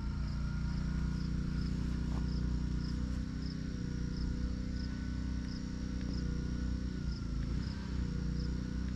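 Crickets chirping at an even pace, about one chirp every 0.7 seconds, over a steady low hum, with a faint click about two seconds in.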